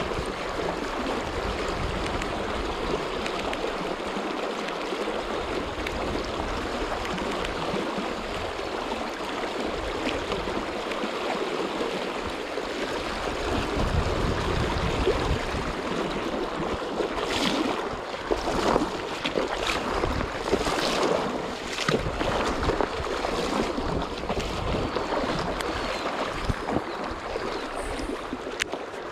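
Steady rushing of a fast-flowing river current over its riffles, with a low uneven rumble and a few sharp clicks about two-thirds of the way through.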